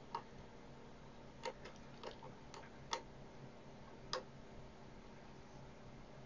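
Faint, irregular clicks, about six in the first four seconds, from a ceramic screwdriver turning the fine-adjust trimmer of a frequency counter's reference oscillator.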